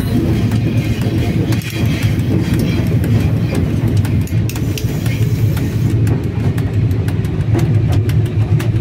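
Cab noise of a VL10 electric locomotive under way: a steady, loud low rumble from its running gear and machinery as it gathers speed. From about six seconds in there is a run of rapid, regular clicking.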